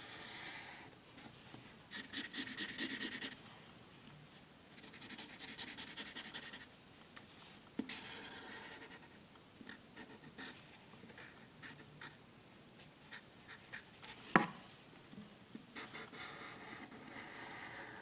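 Felt-tip marker drawing on paper: scratchy strokes in bursts a second or two long, with small ticks between them and one sharp tap about three-quarters of the way through.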